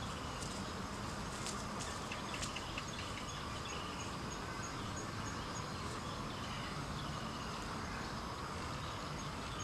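Outdoor ambience: a steady hiss of background noise with a faint, high chirp repeating evenly about twice a second, and a few light clicks or rustles in the first few seconds.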